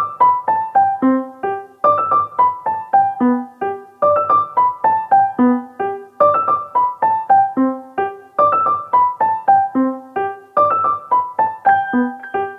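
Background music: a piano playing a steady run of single notes, about four a second, in a short phrase that repeats every two seconds or so.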